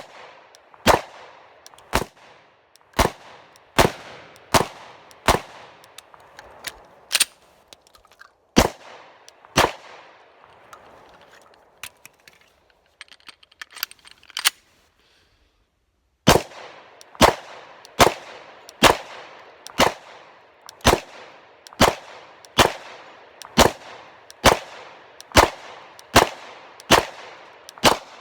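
Glock 29 pistol firing 10mm rounds in quick, even strings of sharp shots, about one a second. After a pause of several seconds midway, a second, slightly faster string follows.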